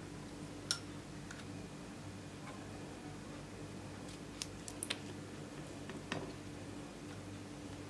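A few small, sharp clicks and taps as plastic makeup tubes and crayons are handled over glass slime trays, with a short cluster of clicks near the middle. A steady low hum runs underneath.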